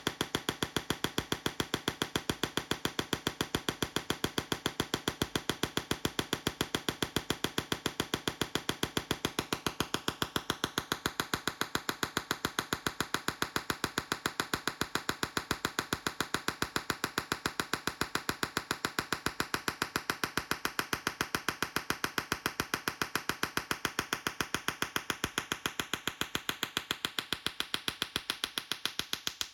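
A Tesla coil sparking in a rapid, steady train of sharp snaps, several a second, evenly spaced.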